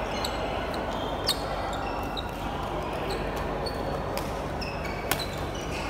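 Badminton rally in an indoor hall: sharp cracks of rackets striking the shuttlecock, the loudest about a second in and again near the end, with short high squeaks of court shoes on the floor between them, over a murmur of voices in the hall.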